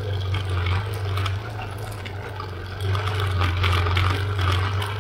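A vehicle's engine droning steadily while driving a rough dirt road, with tyre and gravel noise and scattered rattling clicks, a little louder about three seconds in.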